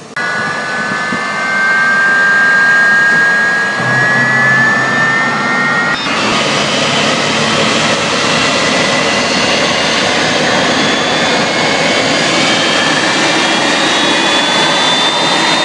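Jet airliner's turbine engine noise at close range: a loud rush with high whines, one rising slowly in pitch over the first six seconds. About six seconds in the sound changes abruptly to a steadier, brighter rush with a faint whine that climbs again near the end.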